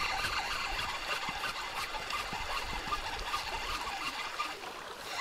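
Spinning reel on a bottom fishing rod being cranked: a steady whirr with faint small clicks as line is wound in after a bite.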